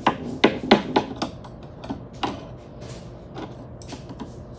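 Quick footsteps of a child running on a hard floor: sharp knocks about four a second, loudest at first, then fading to a few fainter steps as she moves away.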